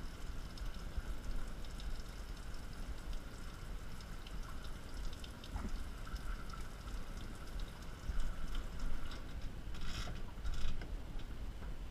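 Water from a kitchen sink's pull-out sprayer spraying steadily onto a phone and bar in a stainless steel sink, splashing and pattering on the metal. About ten seconds in there is a brief clatter as the sprayer head is moved.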